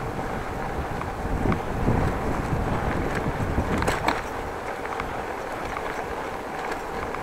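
Wind buffeting the microphone and bicycle tyres rumbling over brick paving while riding, with small rattles and knocks throughout and one louder clatter about four seconds in.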